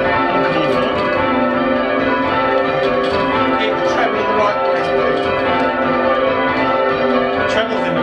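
Change ringing on a ring of five church bells, tenor about 8 cwt tuned to A: the bells strike one after another without a break, their tones overlapping and ringing on. Heard from the ringing chamber beneath them.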